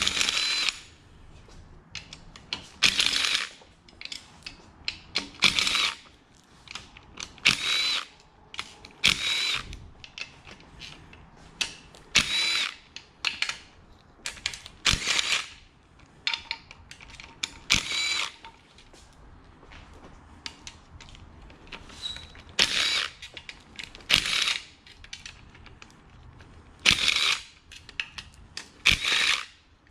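Cordless power driver whirring in about a dozen short spurts, each under a second, with a high motor whine, as bolts are backed out of the engine.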